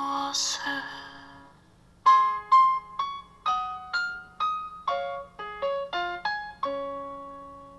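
Background music: a piano tune of separate struck notes begins about two seconds in and ends on a held note that slowly fades.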